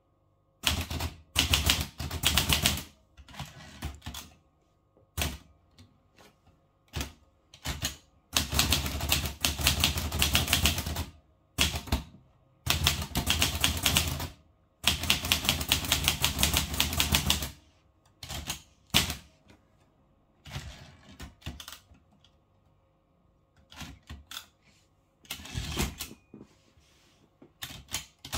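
Olivetti Lettera 32 manual typewriter being typed on: rapid runs of clacking keystrokes a few seconds long, broken by pauses and single strikes.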